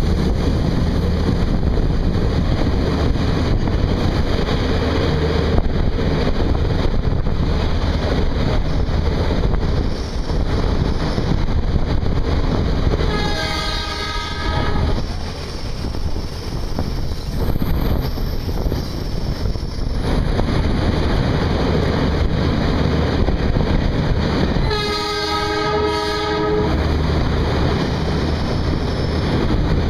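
Express passenger train hauled by an ALCO WDP3A diesel locomotive running through a station at speed without stopping: a steady rumble and clatter of wheels on the track, with two horn blasts, one about halfway through and one near the end, each lasting a second or two.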